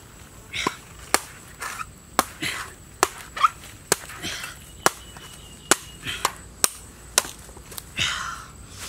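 A knife blade chopping into the husk of a green young coconut to open its top: about ten sharp chops, irregularly spaced.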